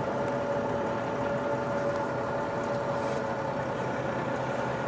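A vehicle engine running steadily, a constant drone with a held hum.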